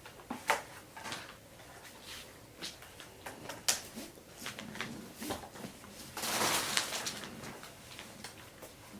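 Plastic and metal tricycle parts being handled during assembly: scattered clicks and knocks, with a louder noisy rub lasting about a second past the middle.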